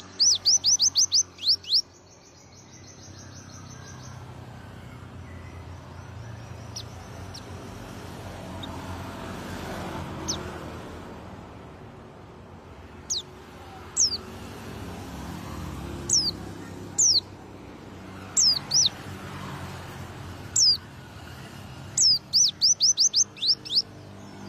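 Pleci (white-eye) singing in rapid 'tembakan' bursts: a fast machine-gun string of sharp, high, downward-sweeping notes at the start and again near the end, with single sharp notes in between. A steady low background rumble runs underneath.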